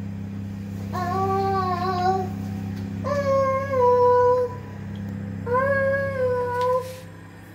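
A high voice singing long held notes, three of them about two seconds apart, over a steady low hum.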